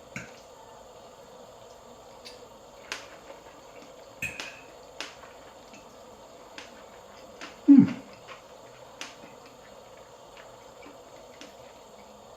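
Scattered light clicks and taps of cutlery against a plate while eating, with one louder, short, low sound about eight seconds in.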